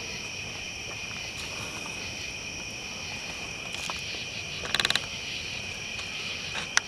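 Steady chorus of crickets trilling high and continuously. A short burst of crackling pops from the bonfire comes a little under five seconds in.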